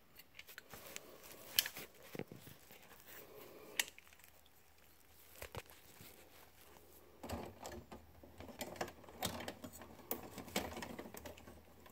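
Faint handling sounds of hands fitting a plastic Efergy clamp-on current sensor clip around a main cable in a breaker panel: scattered clicks and taps with rustling of wires, busier in the second half.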